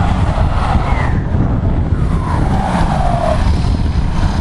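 Ford Mondeo ST TDCi turbodiesel driving past through a straight-through side-exit exhaust: a loud, deep rumble, with a higher whistling note that glides down in pitch about two to three seconds in.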